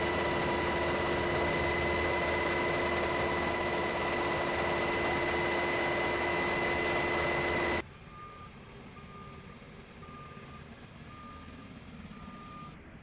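Loud, steady aircraft engine noise with a fixed high whine, cutting off abruptly about eight seconds in. After that, much fainter, a vehicle's reversing alarm beeps five times, about once a second.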